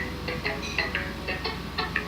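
A light tune of quick, high plucked notes, several a second, over a low steady hum.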